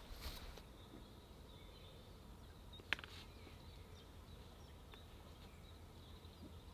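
Quiet outdoor ambience with faint bird chirps, broken by one sharp click about three seconds in and a fainter one about two seconds later.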